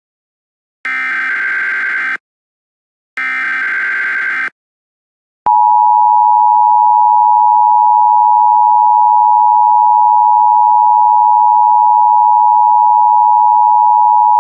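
Emergency Alert System alert tones: two short buzzy squawks of the digital SAME header, a second or so apart, then from about five seconds in the loud, steady two-tone EAS attention signal, held without a break.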